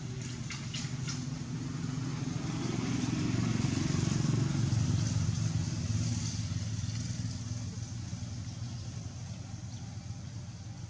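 A motor vehicle passing by: a low engine hum that builds to its loudest about four to five seconds in, then slowly fades away.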